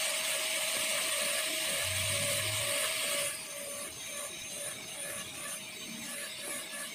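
High-speed dental handpiece with a tapered diamond bur cutting down the lingual cusp of a plastic typodont molar: a steady high whine over air hiss, dropping to a quieter level about three seconds in.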